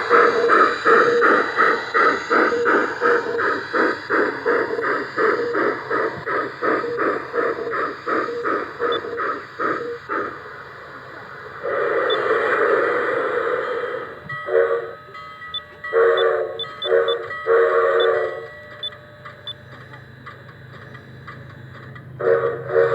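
Bachmann K27 model steam locomotive's onboard sound: a steady chuff that slows and dies away, a hiss of steam, then several whistle blasts of different lengths. The chuffing starts up again near the end.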